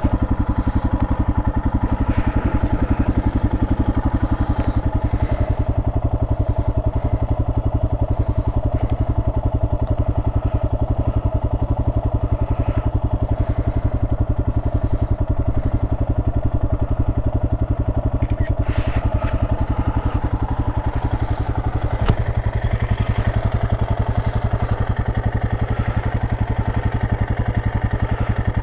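Royal Enfield Himalayan's 411 cc single-cylinder engine idling steadily, with even firing pulses and no revving. One brief click about three-quarters of the way through.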